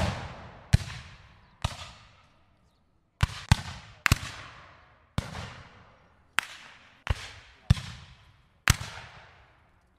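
Single gunshots, about ten of them at uneven intervals, each a sharp crack followed by an echoing tail that fades over about a second.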